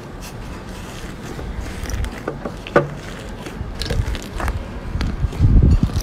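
Hands pressing, tearing and kneading a thick puffed-up blue slime with a cracked dry crust, making scattered crackling pops and squelches. A heavier, louder squish comes about five and a half seconds in.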